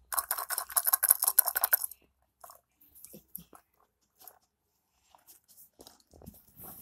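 Dry treats rattling inside a rubber dumbbell treat-feeder toy as it is shaken, a fast, loud clatter for about two seconds. After that come only scattered soft clicks and knocks.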